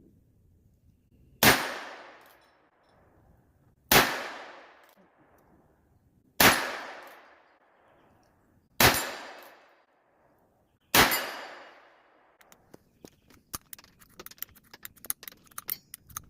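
Five shots from a .22 LR revolving-action carbine with a 16-inch barrel, spaced about two to two and a half seconds apart, each trailing off in a long echo. A quick run of small clicks follows near the end.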